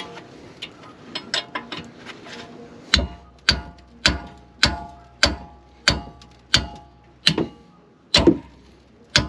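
A hammer striking steel on a car's rear brake assembly, a little under two blows a second from about three seconds in, each blow ringing briefly; a few light clicks and taps come before the hammering. The blows are to knock loose a part that is stuck tight.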